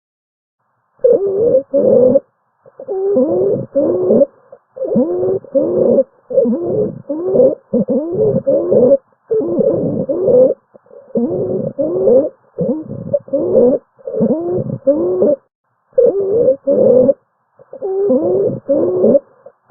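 Recorded chest breath sounds with musical wheezing: pitched, whistle-like tones that slide up and down, coming in short paired bursts with each quick breath, starting about a second in.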